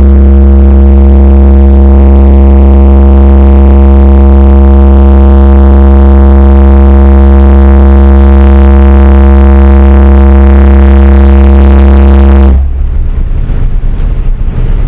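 A car audio subwoofer system in a Chevrolet van plays a bass burp for an SPL meter run: one deep, unwavering low tone at full power, loud enough to overload the recording. It cuts off suddenly about twelve and a half seconds in.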